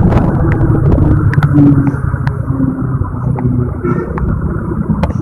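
Heavy diesel engine running with a steady deep rumble, its pitch wavering slightly, with a few sharp clicks over it.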